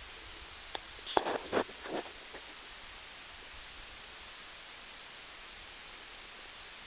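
Steady hiss from the built-in microphone of a Pard night-vision rifle scope, with a brief cluster of short clicks and rustling noises between about one and two and a half seconds in.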